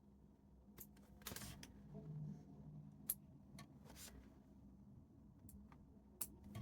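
Near silence broken by a few faint clicks and a brief light rustle, the sounds of hands handling the bag and its materials at the work table.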